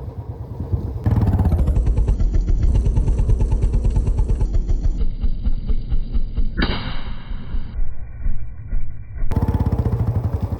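Royal Enfield Bullet single-cylinder motorcycle engine running under way, its exhaust popping and crackling with misfires. One sharper crack comes about two-thirds of the way in.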